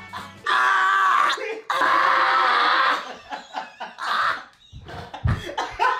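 Men laughing uncontrollably: two long high-pitched screaming laughs, each about a second, then shorter broken bursts of laughter. A dull low thump comes near the end.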